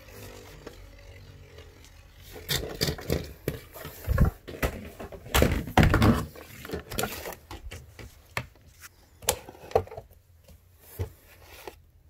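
Cosmic Kraken Beyblade spinning down in a plastic stadium with a fading whir, followed by a string of irregular knocks and scrapes.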